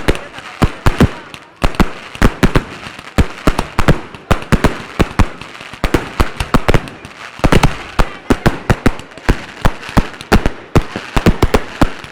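Fireworks display: a rapid, irregular barrage of sharp bangs and crackling pops, several a second, each ringing out briefly.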